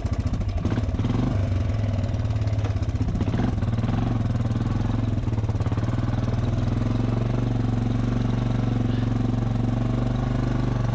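ATV engine running under way at a steady low speed, its pitch wavering over the first three seconds or so and then holding steady.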